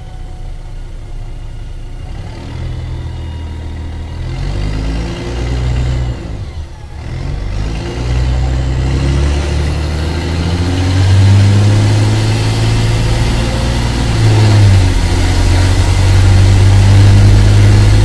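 Mercedes-Benz O-500MA bus's diesel engine pulling under acceleration, its exhaust holed. The pitch climbs, drops at a gear change about 7 seconds in, climbs again and holds high with another brief step near 15 seconds, getting louder as it goes.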